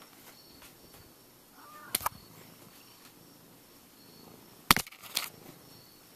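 Sharp knocks and scrapes right on the camera body as a Siamese cat bumps and paws at the handheld camera. There is a quick pair about two seconds in and a louder cluster of several knocks about three-quarters of the way through.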